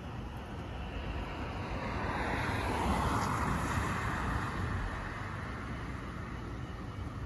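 A car passing on the street, its tyre and road noise swelling to a peak about three seconds in and then fading, over a steady low rumble of distant traffic.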